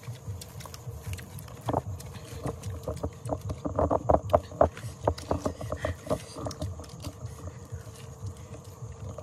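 Eating and food-handling noises: quick crisp clicks and crunches as fresh greens are snapped apart and chewed. The crunches are busiest about four seconds in.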